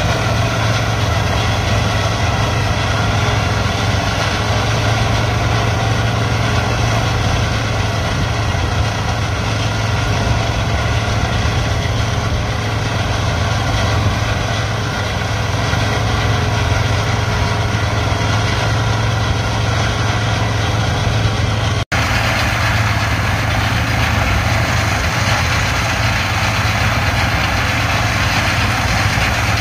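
John Deere T670i combine running steadily while harvesting corn: a constant engine drone with a strong low hum and machinery noise over it. The sound drops out for an instant about 22 seconds in and comes back slightly brighter.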